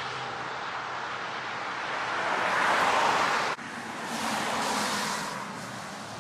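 Steady hiss of rain on a wet street, with a car's tyres swishing past on the wet road and swelling about three seconds in. The sound breaks off suddenly a little past halfway and comes back with another swell.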